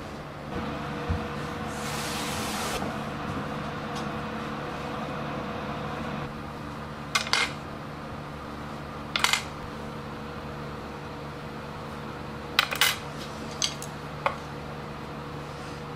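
Thin steel grilling skewers clinking sharply several times as they are worked out of salt-grilled cod milt on a wooden board, over a steady kitchen hum.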